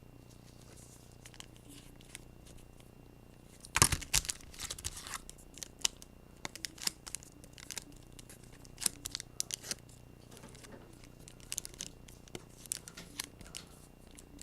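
Trading-card pack wrappers being torn and crinkled in scattered rustles, with the loudest tear about four seconds in.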